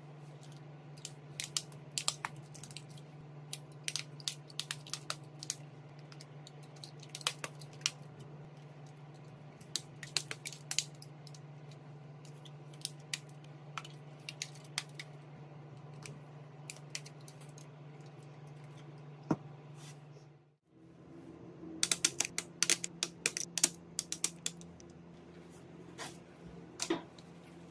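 Small tools clicking and tapping against a phone under repair, with irregular sharp clicks over a steady low hum. The sound drops out briefly about two-thirds of the way through, then a quick flurry of clicks follows.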